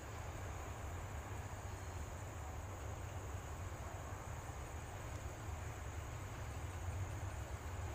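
Low, steady rumble of an Alsthom diesel-electric locomotive drawing slowly into the station, growing a little louder near the end. Crickets keep up a steady high-pitched drone over it.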